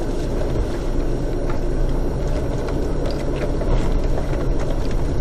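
Car driving slowly along a dirt track, heard from inside the cabin: a steady low rumble of engine and tyres, with a few light knocks and clicks.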